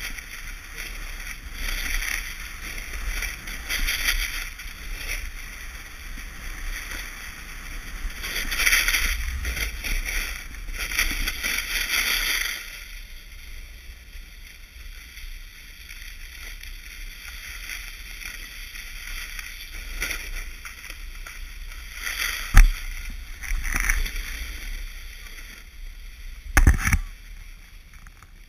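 Snowboard edges carving on groomed snow, with a scraping rush that swells at each turn every second or two. About halfway through the board slows to a quieter glide, and two sharp knocks come later on.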